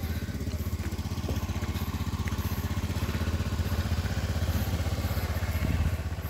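An engine running steadily nearby: a low, even drone with a fast regular pulse that holds at one level.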